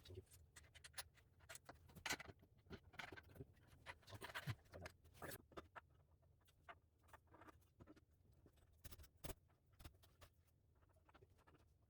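Faint scattered clicks, taps and scratching from bike parts and hardware being handled during assembly, busiest in the first half.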